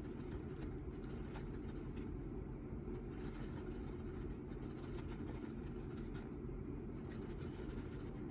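Steady low background hum with faint light scraping and ticking from two-part 5-minute epoxy being stirred on a mixing surface.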